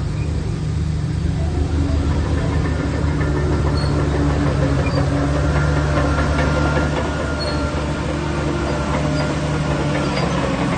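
Heavy diesel engine of a Shantui DH17 crawler bulldozer running steadily under load, with faint metallic clanks. It eases slightly about seven seconds in.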